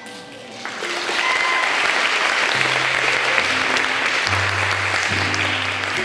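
Audience applauding, swelling up over about the first second and then holding steady, over music with a low bass line.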